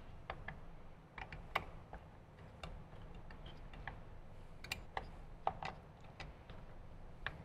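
Light, irregular clicks and taps of small metal hardware as bolts are handled and fitted into a motorcycle fairing's mounting plate, about a dozen in all.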